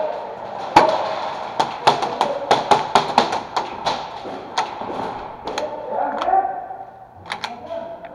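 Airsoft guns firing in irregular strings of sharp cracks, at times several a second, with a few more shots near the end.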